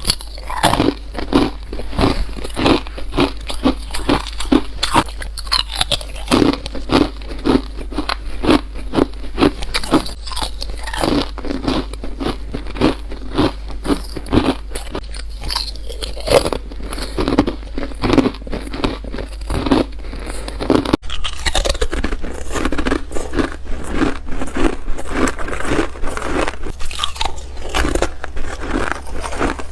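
Chip ice being bitten and crunched close to the microphone, one crisp bite after another at about one to two a second, over a steady low hum.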